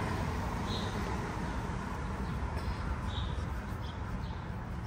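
Steady outdoor noise with a low rumble, and a few short high chirps from birds: one about a second in, two after three seconds, and one at the end.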